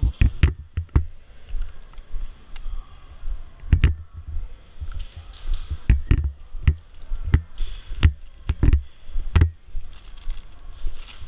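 Footsteps on a concrete floor, heard through a body-worn camera: a quick run of steps at the start, then slower, evenly spaced steps about every two-thirds of a second, with clothing and gear rustling.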